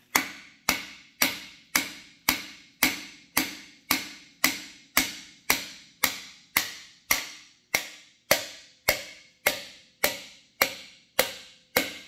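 Hammer blows on a nylon-tipped driver rod, pounding a brass bushing into the axle bore of a PistenBully 400 Park snowcat. The strikes are sharp and evenly spaced, about two a second, and each rings briefly.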